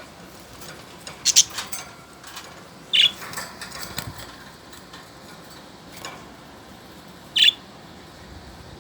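Budgerigars giving short, sharp, high chirps: three loud calls, about a second in, at about three seconds and near the end, with fainter chirps and clicks between.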